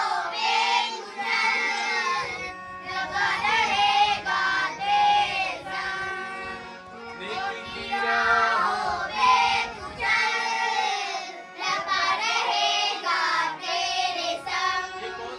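A group of children singing a song together in short phrases, boys' voices first and then girls' voices.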